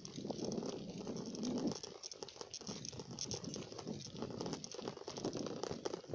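Bicycle riding noise heard from a phone held low by the front wheel: irregular rattling and patter from the bike over the road, mixed with rough wind and handling noise on the microphone.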